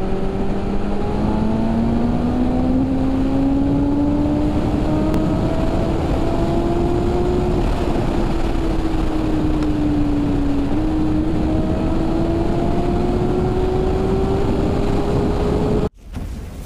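2019 BMW S1000RR's inline-four engine pulling hard under load with wind rush. The engine note climbs slowly, eases back, jumps up about eleven seconds in as a lower gear is taken, and climbs again. Near the end it cuts off suddenly, followed by a short hit that dies away.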